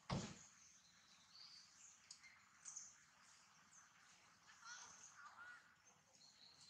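Faint outdoor ambience with scattered high bird chirps and calls. A single sharp thump right at the start.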